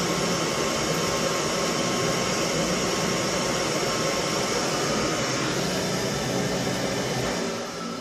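Steam boiler's burner firing with a steady rushing noise, then shutting off near the end as steam pressure reaches about 1¾ pounds and the pressure control cuts out.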